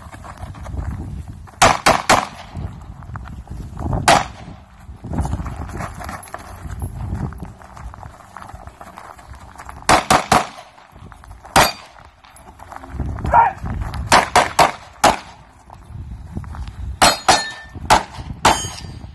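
Pistol fired in quick strings of two or three shots, with pauses of a few seconds between strings. Near the end, some shots are followed by a brief metallic ringing.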